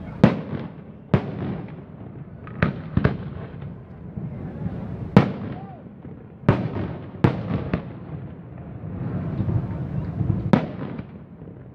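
Aerial firework shells bursting, about ten sharp booms at uneven intervals, some coming in quick pairs and triplets, over a steady low background rumble.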